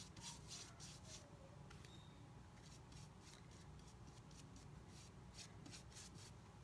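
Faint, repeated short strokes of a flat paintbrush brushing paint onto a wooden door hanger.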